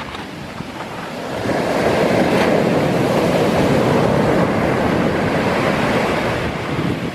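Sea surf: a large wave breaking and washing in, swelling about a second and a half in and easing off near the end.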